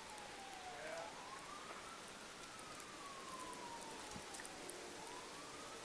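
Distant emergency-vehicle siren wailing, its single tone sliding slowly down and up over about one and a half cycles, faint over a steady background hiss.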